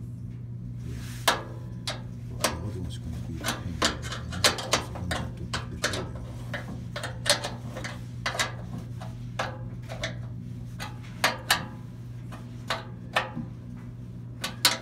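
Irregular sharp metallic taps and clicks of hand tools working on a blower wheel's shaft and bearing, over a steady low hum.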